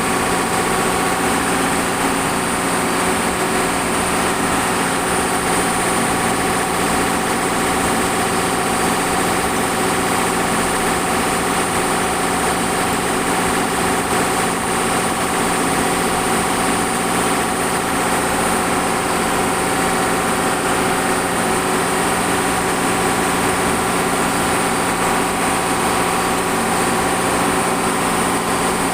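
Shipboard machinery aboard a longline fishing vessel running steadily: a loud, unchanging machine hum with several steady tones over a constant hiss.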